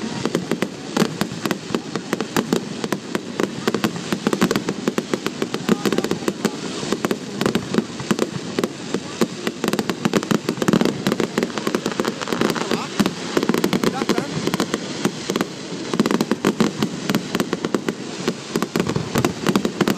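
Aerial fireworks bursting one after another: a continuous stream of rapid bangs and crackling from crackle-effect shells, with people's voices mixed in.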